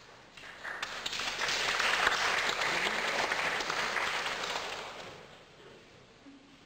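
Audience applauding in a hall: the clapping starts about half a second in, swells, and dies away after about five seconds.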